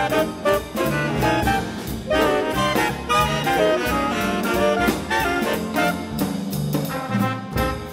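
Jazz big band playing: saxophone and brass section lines (trumpets, trombones) moving quickly over bass and drums, with regular cymbal and drum strokes.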